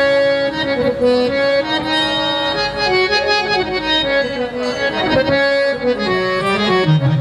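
Instrumental break in live Punjabi devotional folk music: a sustained, reedy accordion-like melody line played over the band's hand-drum accompaniment.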